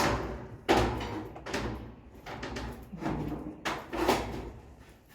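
Corrugated Colorbond steel fence sheets being handled and slid into the fence rails, with a series of metallic clanks and scrapes, loudest near the start and again about three to four seconds in.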